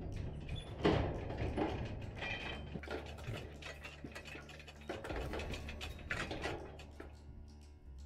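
Steel Arrowquip Q-Catch squeeze chute and head gate being worked as a calf is caught in it: irregular metal clanks, rattles and ratchet-like clicking from the gate and squeeze mechanism, with the sharpest clank about a second in.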